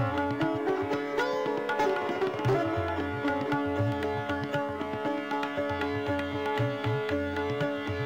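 Instrumental background music: a plucked-string melody over a steady drone, with low drum strokes.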